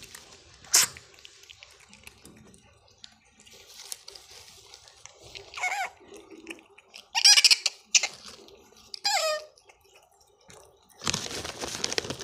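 Pet otter squeaking: three short, high squeaky calls, each falling in pitch, about five, seven and nine seconds in. A burst of rustling comes near the end.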